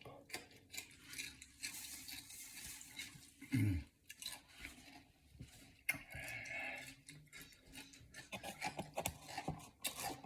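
Small handling noises of eating: scattered clicks and rustles of food and packaging, with a short grunt about three and a half seconds in and a run of clicks near the end.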